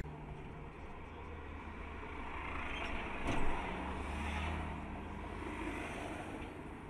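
Road traffic heard from inside a stopped car: a steady low engine hum, with a minibus passing close alongside that swells about three to four seconds in. A short click about three seconds in.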